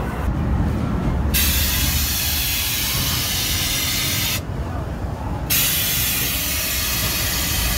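Pressurised gas jetting out with a loud hiss, a typical fog or air-blast scare effect. It starts sharply about a second and a half in, stops for about a second past the middle, then hisses again, over a steady low rumble.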